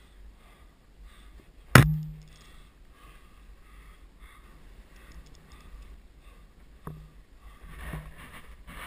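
A single sharp, loud knock very close to the microphone about two seconds in, with a short ringing tail, from the climber's helmet or gear striking hard against something. A fainter click comes near the end, amid the rustle of the climber moving on the rock.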